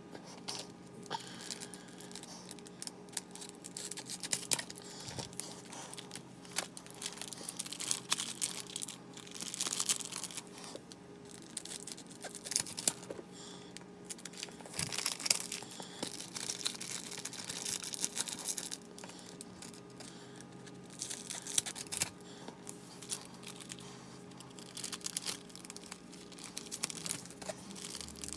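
Foil Pokémon card booster pack wrapper being crinkled and torn open, in several separate bouts of crackling.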